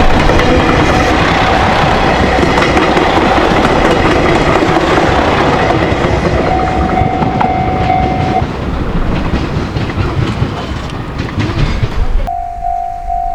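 A train passing close over a level crossing, loud and steady, easing off after about eight seconds. The crossing's warning bell rings through it. About twelve seconds in, the train noise cuts off abruptly and only the crossing bell is left, ringing in a steady repeated tone.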